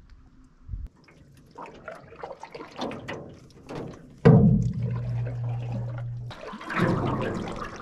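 Canoe paddle strokes splashing and water dripping and trickling off the paddle blade. A loud sudden thump about four seconds in is followed by a low steady hum for about a second and a half.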